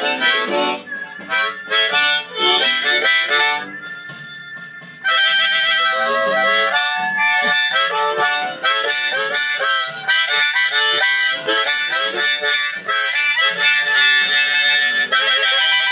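Blues harmonica solo in short phrases of held and repeated notes, growing louder and busier about five seconds in.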